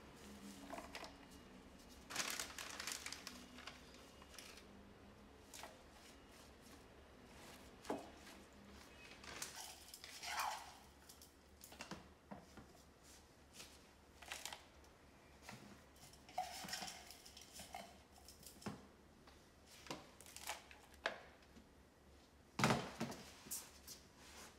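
Irregular rustling, clicking and clattering of plastic containers being handled while bark chips and potting mix are scooped into a clear plastic pot.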